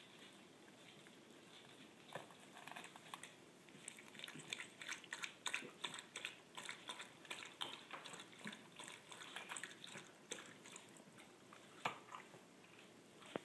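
A cat biting and chewing on a thong sandal: faint, quick, irregular clicks and smacks, with one sharper click near the end.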